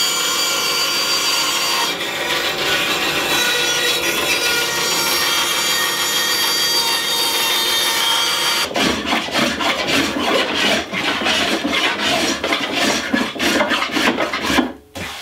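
Bandsaw running and cutting along a wooden canoe paddle shaft to taper it, a steady whine with the blade in the wood. About nine seconds in it gives way to quick, rough hand strokes of a rasp shaping the wood.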